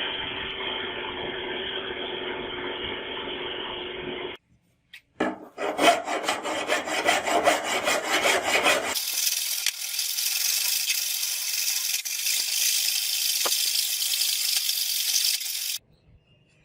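Hand tool rasping and scraping on a workpiece in three stretches. First a steady scrape, then after a brief break rapid back-and-forth strokes, then a steady high-pitched abrasive hiss that cuts off suddenly near the end.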